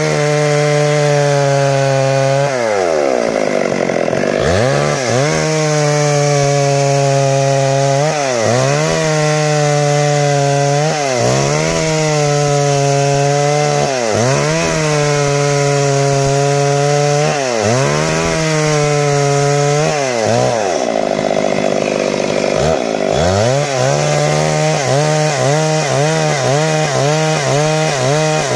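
Stihl MS 382 two-stroke chainsaw ripping lengthwise along a log. The engine note dips under load and climbs back every couple of seconds, with quicker, shallower dips about twice a second near the end.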